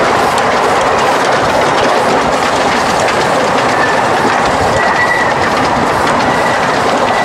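Steady loud rumble and clatter of a miniature steam train's carriages running over the track, heard from on board, with a faint high wheel squeal coming and going on the curve about four to seven seconds in.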